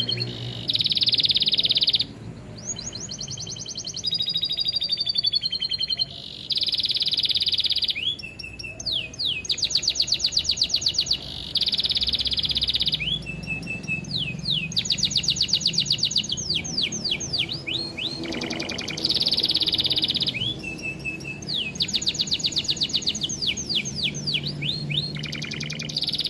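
Canary song: a fast, varied run of rapid trills, repeated-note rolls and swooping whistles, phrase after phrase with sudden starts and stops. It is a bird-song training recording, with lovebird phrases in the canary's repertoire.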